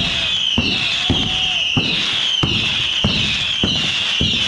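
Mascletà fireworks: a continuous shrill whistling that wavers and falls in pitch again and again, over a string of sharp bangs about every half second.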